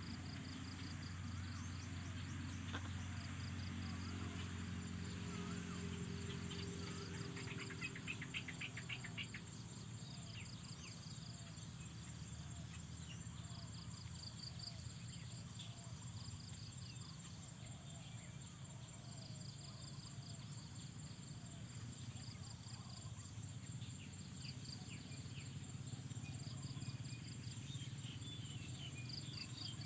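Insects chirping in steady, pulsing high tones, with scattered short bird chirps and a quick rattling trill about eight seconds in. Under it runs a low hum, strongest in the first seven seconds.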